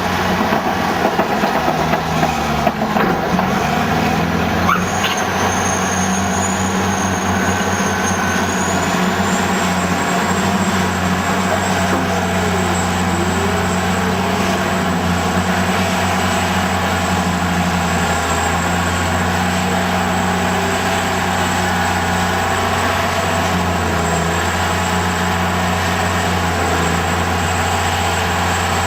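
Caterpillar D10T crawler dozer working slag: its large diesel engine running steadily under load, with a high whine that rises about a third of the way in. Steel tracks clank and squeal underneath.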